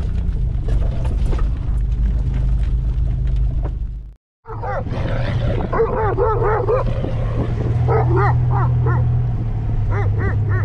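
Off-road vehicle's engine running steadily, with scattered knocks and rattles from rough ground. After a cut about four seconds in, a dog barks in quick runs beside the moving vehicle, over the engine hum.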